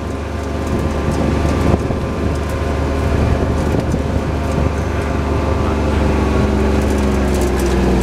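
Engine of a small open utility vehicle running steadily as it drives along a dirt track, its note easing off slightly near the end as it slows.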